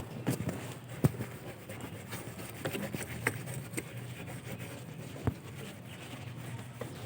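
Scattered light taps and knocks from auto body dent repair work, with two sharper knocks about a second in and about five seconds in, over a steady low hum.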